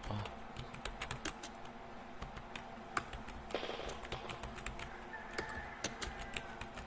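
Typing on a computer keyboard: a run of irregular keystroke clicks, some taps louder than others.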